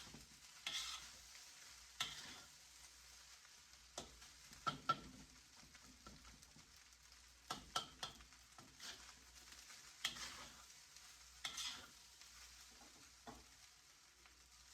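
Fried rice being stirred in a hot pan: short scraping strokes every second or two over a faint sizzle.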